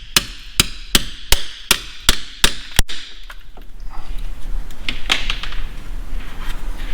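Hammer blows driving bread packed into the crankshaft's pilot-bearing bore, the bread trick to force out a stuck pilot bearing. About eight quick, evenly spaced strikes, nearly three a second, stop about three seconds in, followed by softer clatter.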